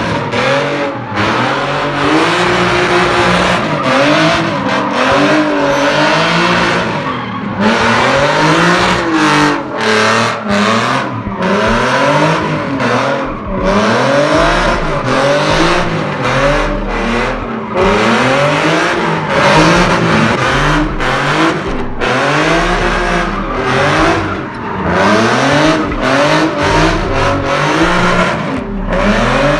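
A drift car's engine revving hard up and down over and over, with tires squealing and skidding as it slides.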